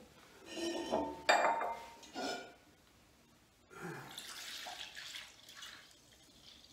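A glass measuring jug knocking and clinking against a stainless steel pot, the sharpest knock about a second in. From about four seconds in, fermenting kaffir lime must is poured from the pot into the jug, a steady splashing pour for about two seconds.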